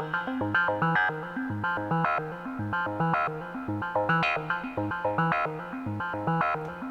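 Arturia MS-20 V software synthesizer, an emulation of the Korg MS-20, running a step-sequenced pattern: a fast, even run of short synth notes over a repeating bass line.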